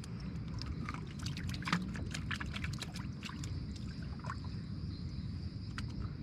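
Water trickling and dripping with scattered small clicks and knocks from handling in a wooden canoe, over a steady low rumble.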